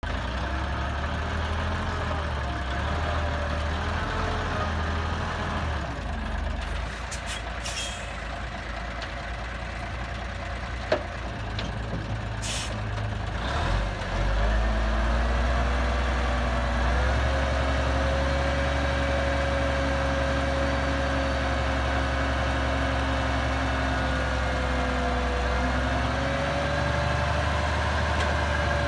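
Tandem-axle dump truck's diesel engine running, with short hisses of air about eight and twelve seconds in. About fourteen seconds in the engine speeds up and holds steady, driving the hydraulic hoist as the dump bed rises to unload its dirt.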